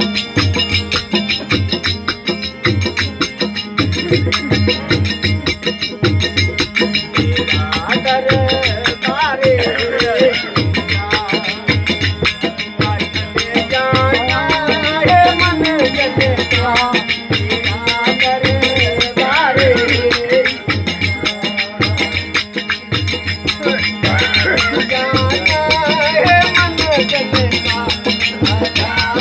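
Folk devotional music without words: a tambura drone under a steady beat with rattling percussion, joined about eight seconds in by a wavering melody line.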